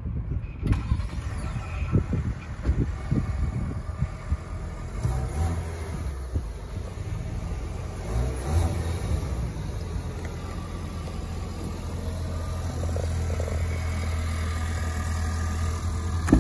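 Ford Maverick's 2.0L EcoBoost turbocharged four-cylinder idling steadily just after a cold start, a low even hum. Wind buffets the microphone in the first few seconds.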